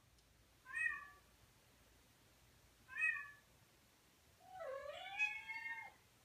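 A cat meowing three times: two short meows about two seconds apart, then a longer meow that dips and then rises in pitch.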